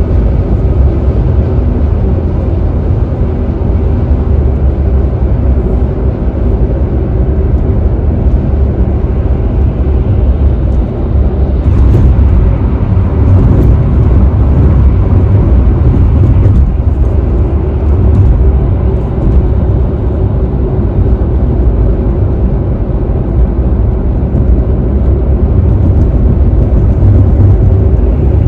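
Steady low rumble of road, tyre and wind noise inside a car cruising at freeway speed, with a few faint ticks midway.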